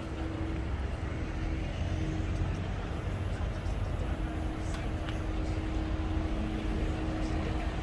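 City street traffic rumbling steadily, with a low steady hum that breaks off and comes back a few times.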